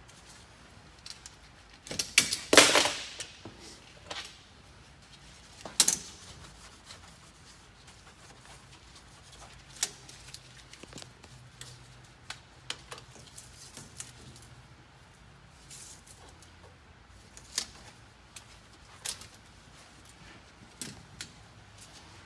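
Clicks, light knocks and rattles of gloved hands fitting a diesel-filled spin-on fuel filter onto its head and reconnecting the wire at its base. The loudest cluster of clicks comes about two seconds in, a sharp knock near six seconds, then scattered single ticks.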